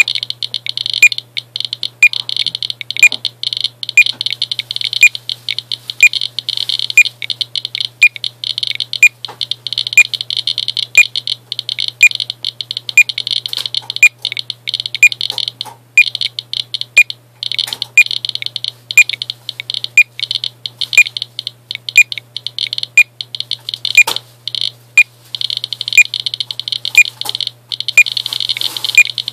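Geiger counter alarm sounding over a rapid crackle of counts, high-pitched, with sharp beeps about once a second; the alarm is set off by the high count rate from uranium-doped glass.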